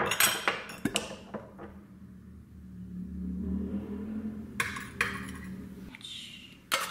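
A metal spoon clinks against a small glass bowl while a sauce is stirred, with several sharp clinks in the first second. After that it is quieter, with a low hum and a few soft clatters. Near the end a spoon knocks sharply in a bowl.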